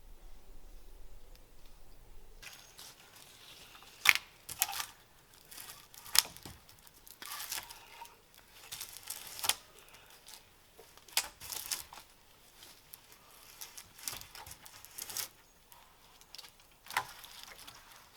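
Dry leaves and twigs crunching, rustling and snapping in irregular bursts, with a few sharp cracks; the loudest come about four and six seconds in.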